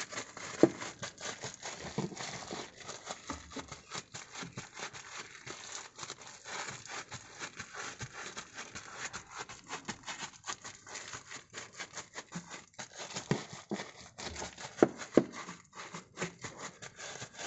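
A crumpled sticky plastic wad dabbed again and again onto car floor carpet, crackling and crinkling as it grips and pulls away, to pick up leftover dust. A few louder taps stand out, one near the start and two close together near the end.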